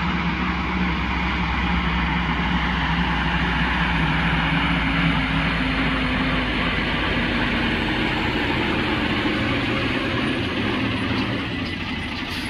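Diesel engine of a heavy-haul semi tractor pulling a 330,000 lb superload on 16 axles, a steady drone with tyre and road noise. It swells slightly midway and eases off near the end.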